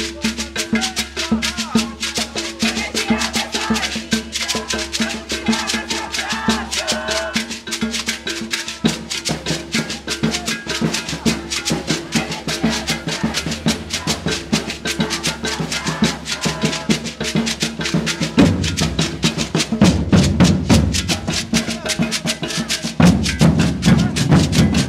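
Maracatu percussion ensemble playing a steady, driving rhythm of drums and shakers. The deep bass drums grow louder about eighteen seconds in and again near the end.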